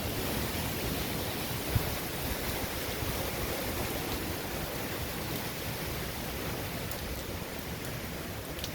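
Hurricane winds blowing hard and steadily, with rain, as an even rushing noise; a brief thump about two seconds in.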